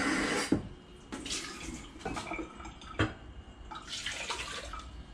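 Kitchen tap running into a coffee cup, shut off about half a second in, then water poured from the cup into a pot, with a few light knocks of the cup against the pot.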